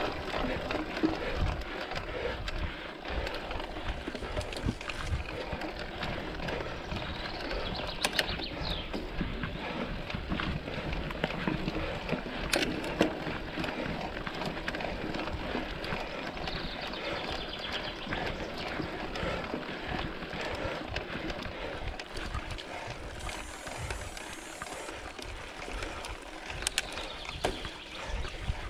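Mountain bike ridden along a trail: steady tyre and rolling noise with frequent clicks and rattles from the bike over rough ground.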